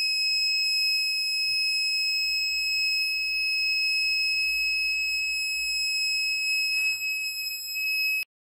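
Buzzer of a 741 op-amp sound-detector circuit giving one steady, high-pitched tone without a break, then cutting off suddenly near the end. A buzzer that stays on like this is, on this circuit, the sign that the reference potentiometer still needs setting towards ground.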